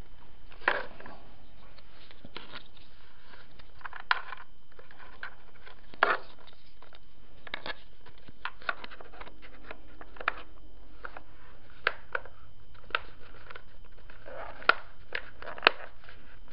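Irregular clicks and knocks from handling the plastic body parts of a G&G F2000 airsoft rifle during reassembly, with two sharper clicks near the end.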